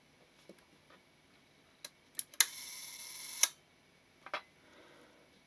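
A Mamiya-Sekor 100mm f/3.5 leaf shutter being fired at a slow speed. Two small clicks come first, then a sharp snap as the blades open, about a second of steady buzzing from the shutter's slow-speed gear train, and a click as the blades close. Another small click follows near the end.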